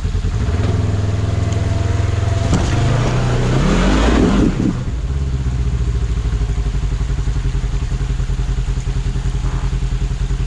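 Polaris RZR XP1000's 999 cc parallel-twin engine idling under load, then revving up over about two seconds as the machine strains over rock. The revs cut back abruptly about halfway through, and it settles to a steady low idle.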